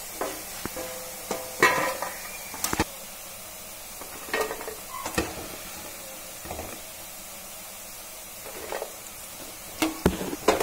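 Soya chunks frying in hot oil with a steady low sizzle, while a steel slotted spoon scrapes and clinks against the pan and a steel plate as the browned chunks are lifted out. The clinks come every second or two, some ringing briefly, and cluster near the end.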